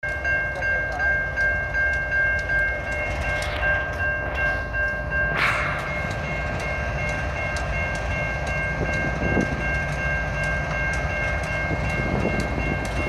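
BNSF diesel-electric locomotive moving slowly, its engine giving a steady low rumble under several steady high tones that hold throughout. There is a short hiss-like burst about five seconds in.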